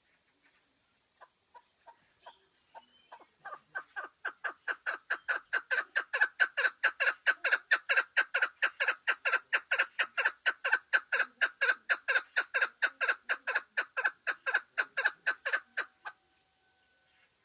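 Chukar partridge (lal keklik) calling from its cage. A few spaced clucks build into a long, fast run of repeated 'chuk' notes, about four a second, which grows louder and then stops suddenly near the end.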